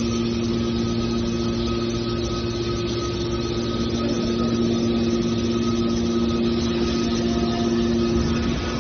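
Hydraulic scrap metal baler's power unit running with a steady hum.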